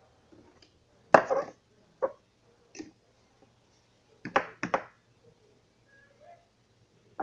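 Plastic cups being knocked down and moved on a tabletop: a series of sharp taps and clacks, the loudest about a second in and three in quick succession a little past the middle.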